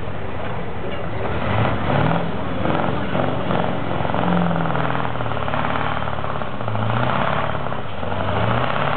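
V8 Mack Superliner's diesel engine working under load on a truck-pull run, its pitch rising and falling several times. The run was made in the wrong gear and ends with the driver wanting another attempt.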